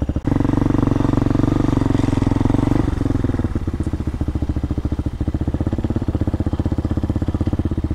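RPS Hawk DLX 250's fuel-injected single-cylinder engine running at low speed as the motorcycle rolls slowly along. It pulls a little harder for the first three seconds or so, then eases back toward idle and runs steadily.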